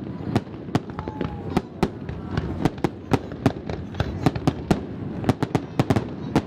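Aerial fireworks shells bursting in a rapid barrage, with sharp bangs coming irregularly several times a second.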